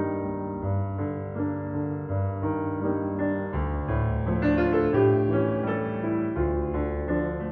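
Background piano music: slow held chords, growing fuller about halfway through.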